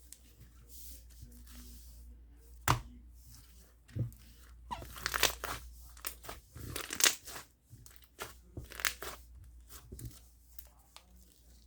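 Slime being squished and stretched by hand: sharp sticky pops, then bursts of crackling and squelching in clusters.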